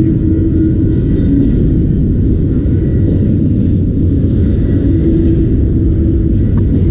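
Autorack freight train rolling past close by: a loud, steady low rumble of wheels on rail.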